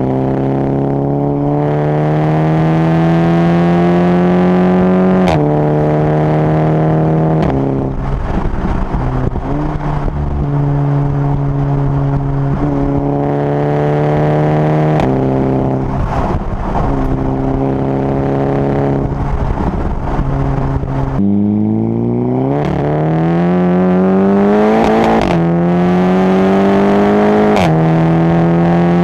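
Volkswagen Group car with a DSG dual-clutch gearbox accelerating hard through the gears. Engine pitch rises and then drops abruptly at each upshift, with the short exhaust crack known as the DSG fart on several of the shifts.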